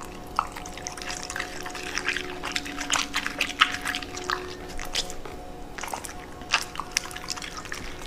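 A corgi chewing and smacking on a leafy green vegetable: a quick, irregular run of crisp, wet clicks and crunches.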